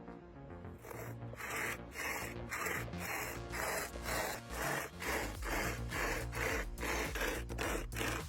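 A saw rasping through wood in regular strokes, about two a second.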